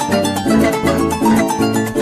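Instrumental llanero music: quick plucked harp and string notes over a steady bass line.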